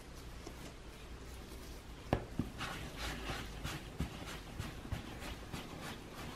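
Hands rolling a ball of whole-wheat bread dough against a wooden board: faint rubbing, with a run of quick strokes in the middle and a few soft knocks.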